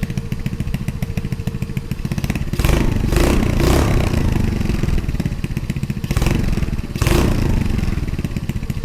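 Honda Navi's 109 cc single-cylinder four-stroke engine running through a Hotlap aftermarket exhaust with its baffle fitted. It idles with a fast putter and is revved up three times: a longer rev about two and a half seconds in, then two short blips near six and seven seconds.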